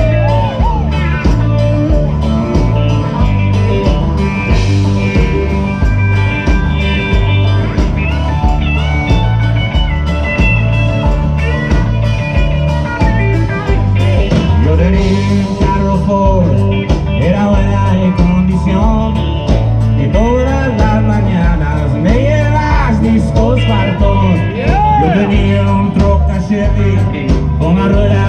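Background music with a steady bass beat and bending melody lines.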